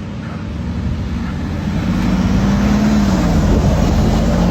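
A vehicle engine running with a steady low hum. It grows louder over the first two seconds, then holds, with a slight drop in pitch about three seconds in.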